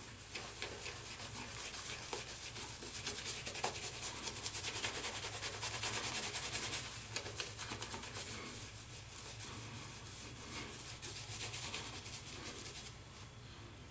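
Shaving brush working shave cream into a wet lather with rapid scrubbing strokes, a wet brushing hiss that grows loudest in the middle and then eases off.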